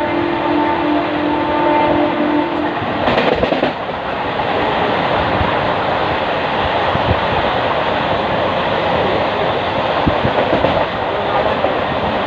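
Indian Railways train running, its horn holding one steady note that stops about three seconds in. A brief loud rush follows, then the steady rumble and clatter of the wheels on the rails.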